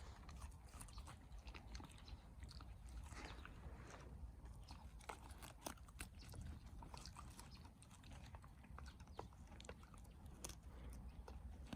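A dog tearing off and chewing grass: irregular crunching bites and chewing clicks, fairly faint.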